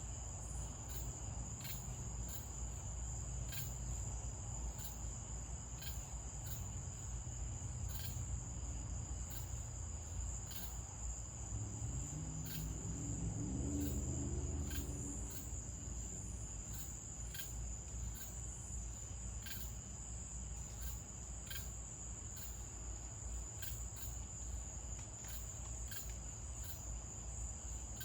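Night insects, crickets, trilling steadily in a high even band, with short sharp chirps repeating about once a second. A low rumble runs underneath, and about halfway through a faint low hum rises in pitch for a few seconds, then fades.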